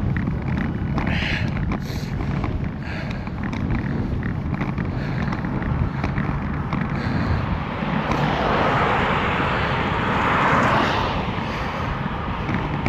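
Wind buffeting the microphone of a moving bicycle as a steady low rumble. About two-thirds of the way through, a rushing noise swells and fades.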